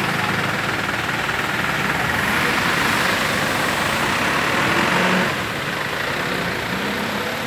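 A light box truck's engine running close by as it moves slowly through a flooded, rain-soaked street, over a steady hiss of heavy rain and water. A louder rushing hiss builds in the middle and drops off suddenly about five seconds in.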